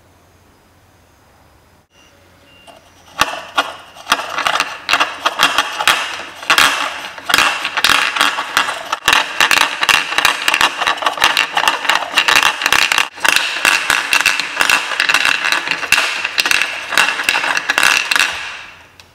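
A smooth stone rolling and clattering fast around a carved wooden bowl, driven by a hand crank: a dense rattle of rapid clicks that starts about three seconds in and dies away just before the end.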